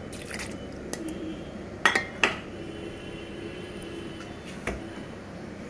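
Utensils clinking and knocking against a metal pressure cooker pot as raw chicken pieces are put in on top of soaked chana dal. There are a handful of short, sharp clinks, the loudest pair about two seconds in.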